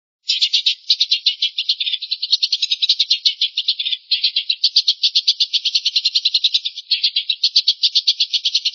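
A bird's fast, even rattling trill of about nine notes a second, played as a tutor song. It runs in long stretches broken by brief pauses.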